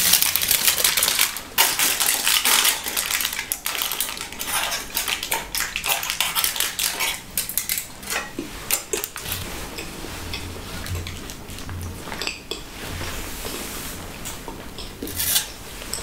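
Aluminium foil crinkling as it is unwrapped and handled: dense, loud crackling through the first half, then sparser and quieter crackles.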